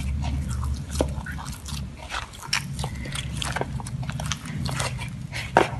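Hands kneading soft dough, freshly worked with a little cooking oil, in a bowl: irregular sticky squelches and smacks, with one sharper click near the end.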